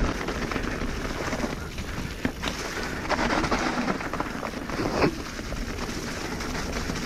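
Mountain bike tyres rolling fast over a wet, leaf-covered dirt trail, a steady wet rushing with the bike rattling. There are a couple of sharper knocks, about two and five seconds in.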